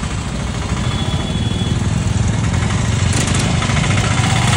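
Jammed road traffic: motorcycle and vehicle engines idling and running close by. About three seconds in a nearby engine gets louder, with a fast clatter.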